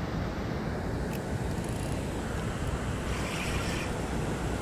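Steady low rumbling outdoor noise of wind and moving river water, with a faint click about a second in.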